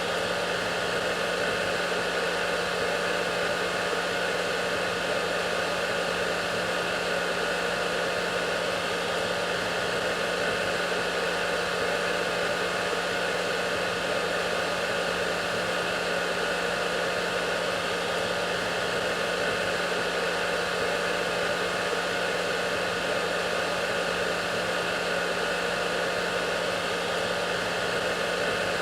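Hair dryer running steadily: a constant airy hiss of blown air over a low motor hum, with no change in speed.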